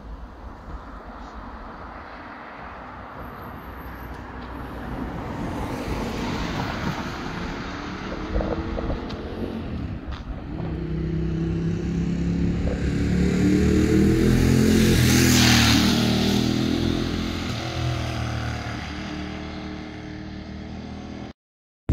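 Street traffic: a vehicle's engine passes close by, growing louder to a peak about two-thirds of the way through and then fading, after a quieter pass of tyre and engine noise a few seconds in. The sound cuts off abruptly just before the end.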